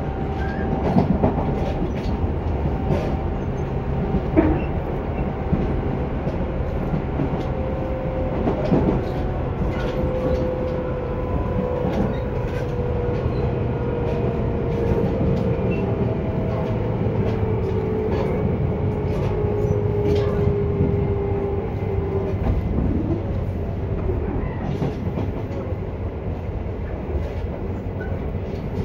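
Tobu 10030 series electric commuter train running at speed, heard from inside the car: a steady rumble of wheels on rail with scattered rail-joint clicks. Midway a faint whining tone slowly falls in pitch.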